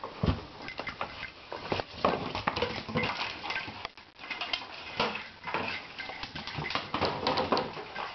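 Miniature dachshund's claws clicking and skittering on a tile floor while it carries a cardboard tube that bumps and scrapes along the floor: a busy, irregular string of clicks and knocks, with one heavier thump right at the start.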